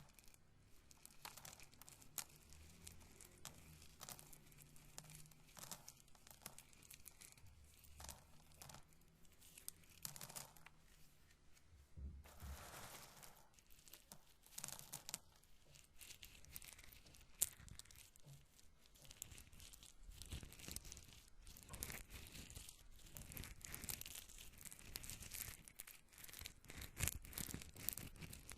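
Roasted corn kernels being rubbed and handled with the fingers close to the microphone: quiet, dense crinkly crackling made up of many small dry clicks, thickening towards the end.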